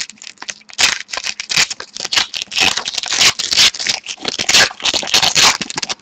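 A pack of 2013-14 Panini Titanium hockey cards being opened by hand: the wrapper crinkling and tearing in quick, scratchy bursts, with cards scraping as they slide out.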